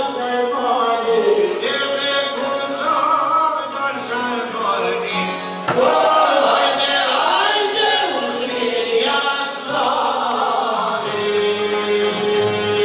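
A group of men singing a traditional Albanian folk song, accompanied by a plucked long-necked lute and frame drum. A steady held note joins the singing near the end.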